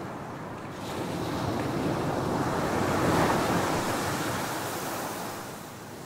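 A small ocean wave breaks and washes up a sandy beach. The surf swells about a second in, peaks midway, and fades near the end.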